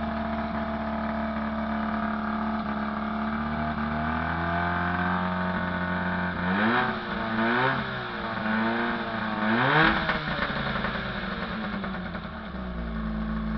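Freshly rebuilt Johnson 20 hp two-stroke outboard motor running, revved up and down several times about halfway through, then settling back to a steady idle near the end.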